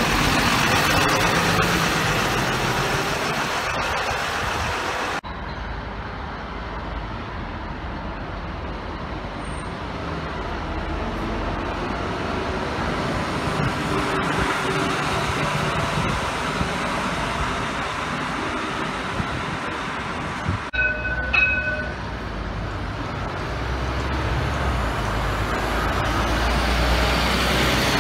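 Articulated city buses driving past close by: engine running and tyres rolling, swelling as each bus passes. About three-quarters of the way through there are a few short, steady beeps.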